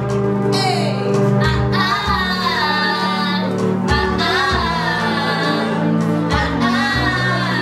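Young female and male voices singing a song together over sustained electronic keyboard chords.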